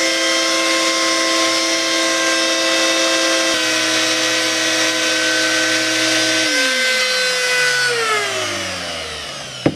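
Handheld rotary tool and a shop vacuum running together while gelcoat cracks are opened up, the vacuum hose held at the work to catch the dust. Both machines are switched off about two-thirds of the way through and wind down one after the other, falling in pitch, followed by a sharp knock just before the end.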